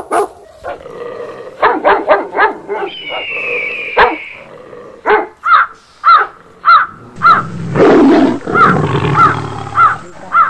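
A dog barking over and over, about two barks a second through the second half, with a few earlier barks. A loud rough noise runs under the barks for about three seconds past the middle.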